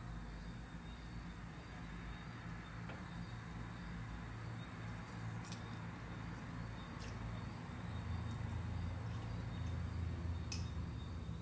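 Quiet room tone: a low steady hum with a few faint sharp ticks spread through it.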